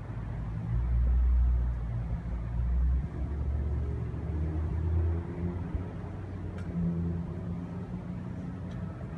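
A low, uneven outdoor rumble that swells loudest about a second in and again around three and five seconds.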